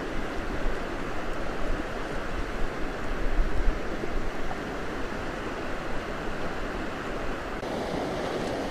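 Steady rush of a fast-flowing river over shallow rapids, with wind buffeting the microphone now and then. Near the end the rushing turns hissier and more even.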